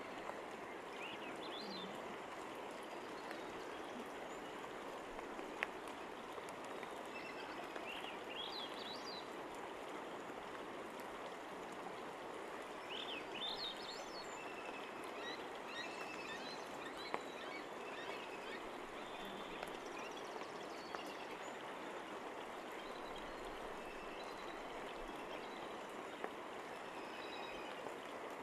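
Steady rushing of creek water with scattered clusters of short, high bird chirps, and a few brief sharp clicks.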